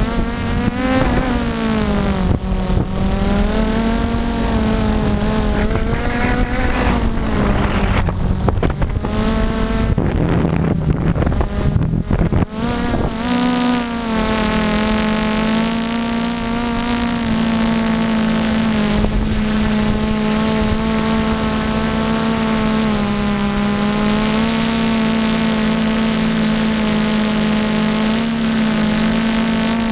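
Y6 multirotor's six brushless motors and propellers humming in flight, the pitch rising and falling as the throttle changes. For roughly the first twelve seconds wind buffets the microphone, then the hum runs steadier.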